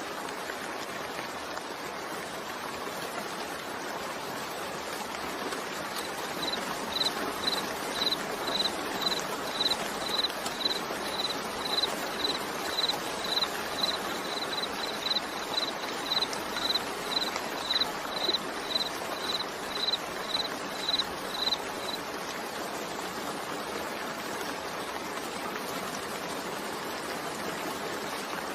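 Steady rain mixed with white noise, an even hiss. From about six seconds in until about two-thirds through, a regular run of short high-pitched chirps, about two a second, stands out above the rain.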